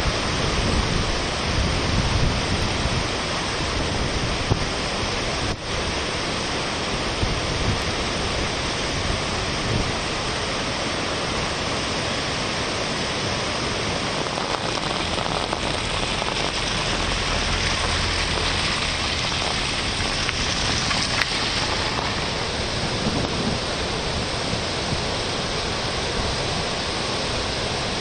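Flooded river rushing in muddy rapids: a steady, dense wash of turbulent water with no breaks.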